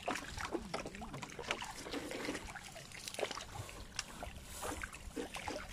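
Water splashing and trickling, with many short sharp splashes, as small fish thrash at the surface inside a fish-trap net.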